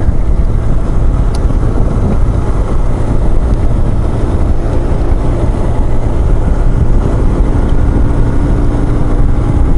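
BMW R1150GS boxer-twin engine running at a steady cruise, mixed with loud wind rush over the microphone.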